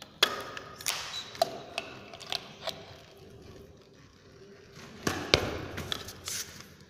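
Clicks and knocks of a hoverboard's charger brick and its cable being handled and set down on a hard floor: several in the first three seconds, then a louder knock and a short flurry of handling about five seconds in.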